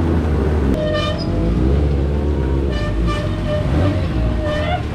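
Motor vehicle engines running at idle under three short horn toots, about a second in, around three seconds and just before the end; the last toot bends upward.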